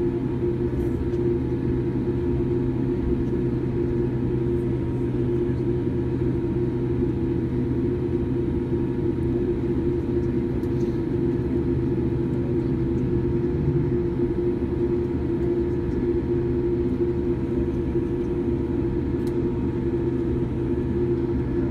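Steady rumble and hum inside the cabin of a Boeing 787-8 taxiing with its engines at idle, with a few faint ticks.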